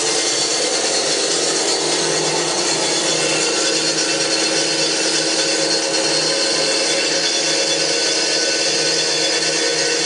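Hyd-Mech S20 Series 2 horizontal band saw running, its blade cutting steadily through metal stock with an even, unbroken noise.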